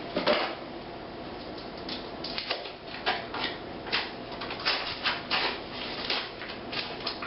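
Crinkling and crackling of a brick of cream cheese's foil wrapper and box being opened and peeled off by hand, a run of short irregular crackles.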